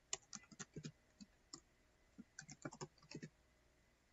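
Faint typing on a computer keyboard: irregular runs of a few quick keystrokes with short pauses between them.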